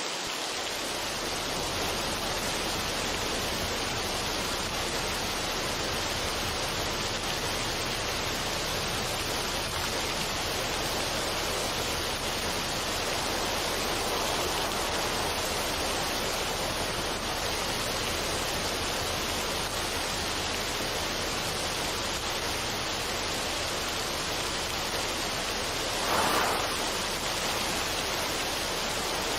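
Steady, even rushing noise of a relaxation sound track, with no music, and a brief swell about 26 seconds in.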